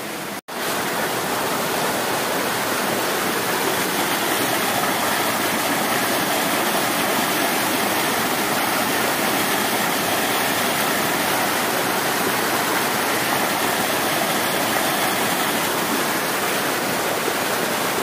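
Shallow rocky river rushing and splashing over boulders: a steady, dense wash of water. It cuts out for an instant about half a second in.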